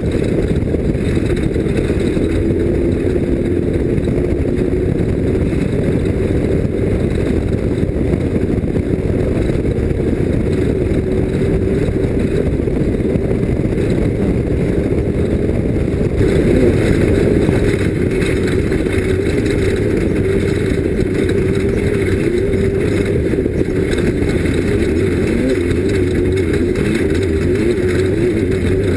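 Off-road race vehicle's engine running hard and steady at speed, its pitch wavering slightly over a dense low rumble. It gets a little louder about sixteen seconds in.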